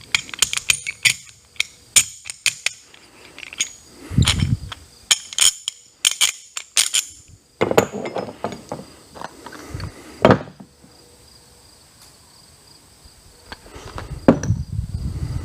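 Metal parts and hand tools being handled on a workbench: a string of sharp clinks and taps with a few heavier knocks, thinning out to a quiet stretch past the middle before more clinking near the end.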